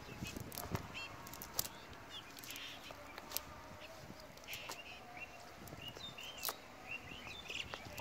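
Birds chirping and calling throughout, with scattered sharp clicks and rustles from a cast net being handled.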